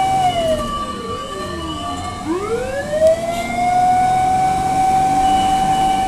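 Fire truck sirens wailing, more than one sounding at once. The main tone falls away, sweeps back up about two seconds in, holds high, and begins to fall again near the end.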